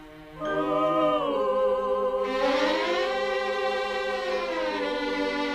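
Recorded song playing: a sung vocal line of long held notes with vibrato, gliding up and down over a musical backing, coming in about half a second in.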